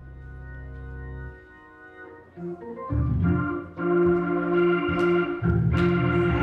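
Organ music: a soft held chord dies away, then from about three seconds in the organ plays louder, rhythmic chords over bass notes.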